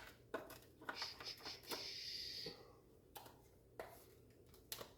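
Light clicks and knocks from handling a plastic tail light assembly, with a short scraping rustle about two seconds in.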